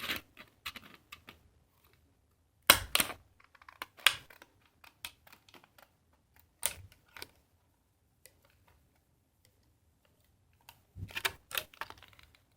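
Scissors cutting through cardboard: irregular sharp snips and crunches in short clusters, with pauses between.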